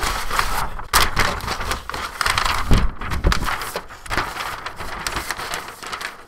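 Large paper plan sheets rustling and crinkling in irregular bursts as they are folded and moved aside.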